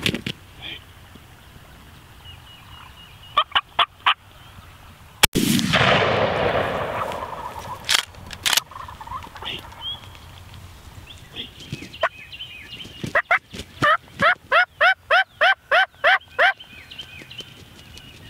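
Wild turkeys calling, with a few short calls about four seconds in and a run of about a dozen evenly spaced, yelp-like notes near the end. A little after five seconds, a single loud bang with a fading rumble that lasts about two seconds.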